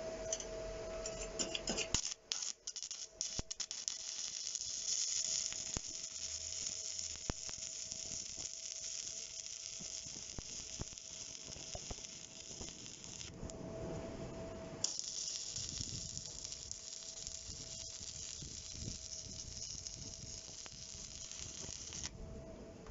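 Stick (manual arc) welding with a rod electrode on steel: a steady crackling sizzle from the arc, starting about two seconds in. It breaks off for a second or so around the middle, restarts, and stops shortly before the end. A faint steady hum runs underneath.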